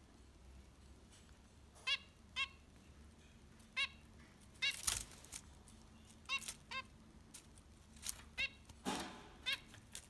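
Caged zebra finches calling: about eight short, pitched calls at irregular intervals, some in quick pairs. A sharp click about halfway and a brief rustle near the end.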